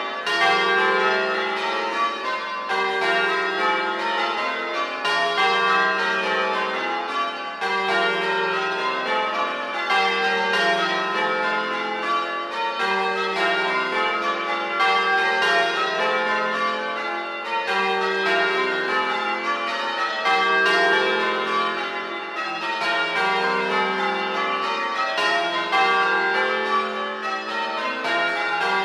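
Change ringing on a 1954 Gillett and Johnston ring of eight church bells: a steady, even run of bell strikes with no gaps, the low tenor note coming round about every two and a half seconds as each row is rung.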